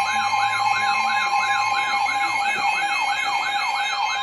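Emergency alert tones: a steady two-note alarm tone with a fast warbling siren sweep laid over it, about three wavers a second.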